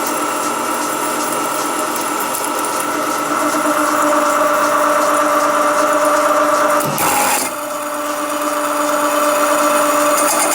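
A 35 mm carbide-tipped hole saw cutting 3 mm steel plate at 500 RPM: a loud, steady machining sound with a constant hum. About seven seconds in there is a sudden sharp noise and the level dips for a moment, then the cutting sound carries on.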